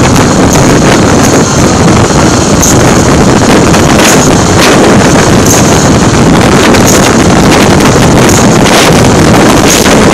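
Wind buffeting the microphone at riding speed on a Kawasaki KLX300SM supermoto, with the bike's single-cylinder engine and road noise mixed in underneath. Loud and steady, with short gusts.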